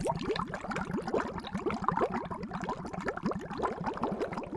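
Water bubbling: a dense run of quick blips, each rising in pitch.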